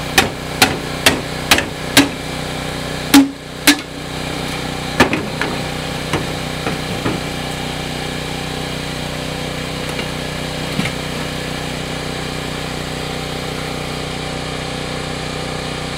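Sharp metal knocks on the cut steel shell of a sealed AC compressor as its top cap is knocked loose: about eight in the first four seconds, then a few lighter clanks as the cap is lifted off. A steady machine hum runs underneath.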